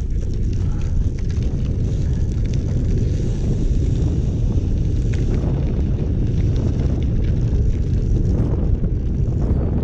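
Steady low rumble of wind buffeting the microphone, mixed with road-bike tyres rolling over a rough gravel lane.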